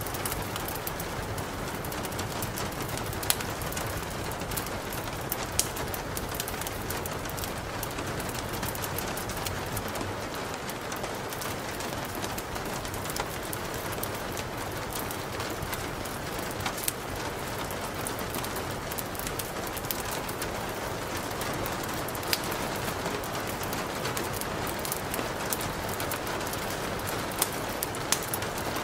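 Steady rain, an even hiss with occasional sharp drops ticking every few seconds.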